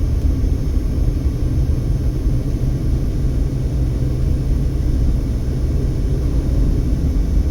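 Steady low rumble of road and engine noise inside a car's cabin while driving at moderate speed.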